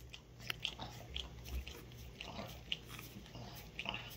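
French Bulldog licking a person's bare toes: quiet, irregular wet licking and mouth smacks, several a second.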